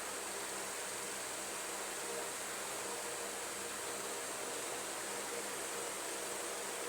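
Wall-mounted fan running steadily on its newly installed replacement motor: an even rush of air from the blades with a faint, steady motor hum.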